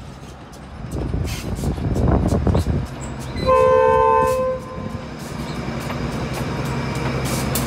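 Train horn sounding a single blast about a second long, two steady tones together, about halfway through. It comes after a loud burst of rail noise and is followed by a steady, growing train running sound.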